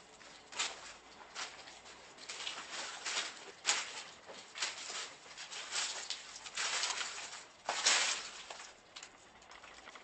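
Footsteps crunching over rubble and dry leaf litter on a concrete floor, an uneven step about once or twice a second. The loudest crunch comes near the end.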